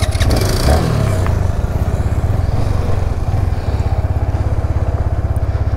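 Motorcycle engine idling with a steady, rapid, even beat.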